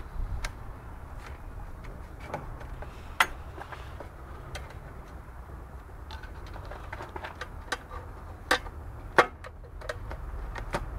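Scattered clicks and sharp knocks of a screwdriver tapping and levering against the rocker cover of a VW 1.9 diesel engine, with the loudest knocks about three seconds in and twice near the end, over a low steady rumble.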